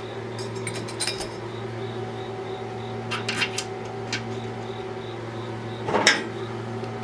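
Small clicks and clinks of screws and a metal corner bracket being handled and fitted onto the laser engraver's metal frame, with a louder knock about six seconds in as the bracket is pressed into place, over a steady low hum.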